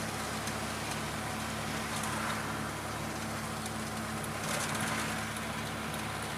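Volkswagen Voyage's AP four-cylinder engine running at a steady, even pitch, heard from inside the cabin, with light road and traffic noise.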